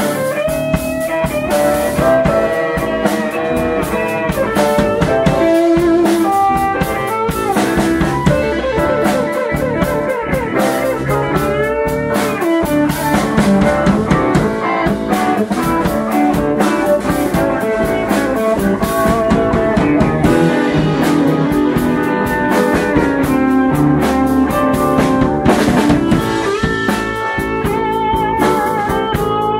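Blues band playing live without vocals: drum kit, electric bass and keyboards, with a lead melody whose notes bend in pitch.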